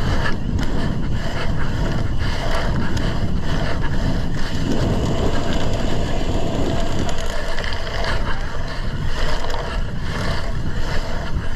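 Wind buffeting the microphone of a camera carried on a moving BMX bike, a loud steady rush with frequent flutters.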